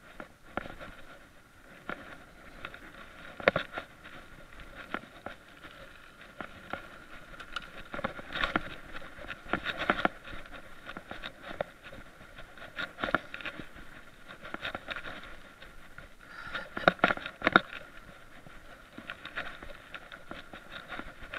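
Mountain bike riding over a dirt trail: a steady rolling noise of tyres on the ground, with irregular rattles and sharp knocks from the bike as it goes over bumps. Several of the loudest knocks come close together about three-quarters of the way through.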